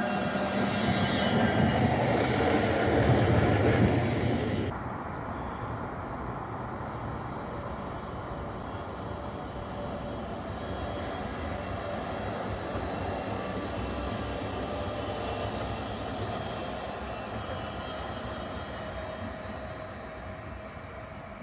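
NGT8D low-floor articulated tram running past close by, its rolling and running noise building over the first four seconds and then cutting off abruptly. After that, a quieter, steady rumble of a tram running at a distance.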